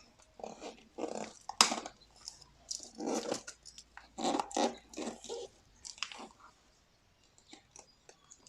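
Crinkling and rustling of a shipping package being handled and torn open by hand, in irregular bursts for about six seconds, then a few faint taps and clicks.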